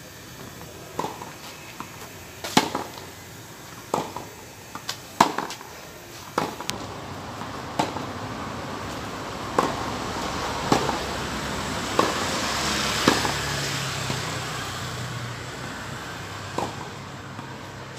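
Tennis balls struck by rackets and bouncing on a hard court during a rally: sharp pops every second or so, about a dozen in all. A rushing noise swells up in the middle and fades away.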